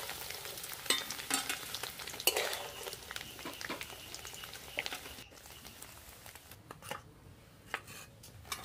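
Paneer cubes sizzling in hot oil in a metal kadai while a metal slotted spatula scrapes and clinks against the pan, scooping the fried pieces out. The sizzle cuts off suddenly about five seconds in, leaving only a few light clinks.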